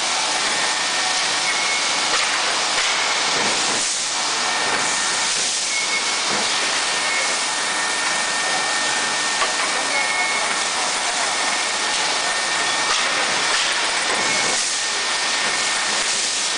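Steady, loud hiss-like machinery noise of a steel rebar rolling mill, with faint high whining tones coming and going.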